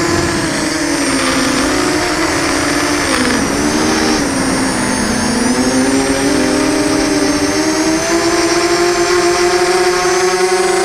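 FPV quadcopter's electric motors and propellers whining loudly, heard from its onboard camera. The pitch sags a few seconds in as the throttle is eased for the descent, then rises again and holds steady as the quad levels off low over the ground.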